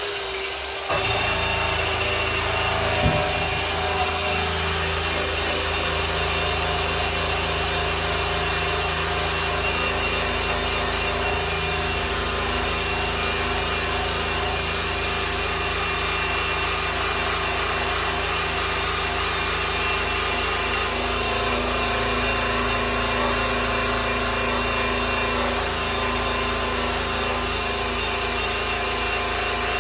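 Electric polisher running steadily with a constant motor whine, its buffing pad rubbing over the finish of a grand piano's case. One sharp click about three seconds in.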